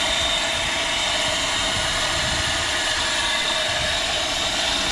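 Small electric water pump running steadily while pumping from a tubewell, with water gushing out of its PVC outlet pipe.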